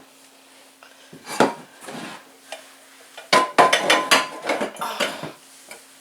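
Measuring cups clinking and clattering against each other as they are set on a shelf: a couple of single knocks, then a quick run of clinks with a brief ringing tone about halfway through.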